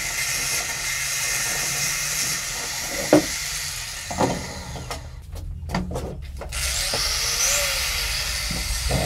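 Angle grinder with a sanding disc running against the steel handle bar of a bench vise, sanding and polishing it. Two knocks come about three and four seconds in, and the hiss drops away for about a second and a half near the middle, with a few clicks, before the grinder runs on.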